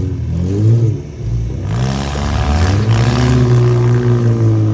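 Demolition derby van engines revving hard, the pitch rising and falling in repeated swells, then held high for over a second before it drops off.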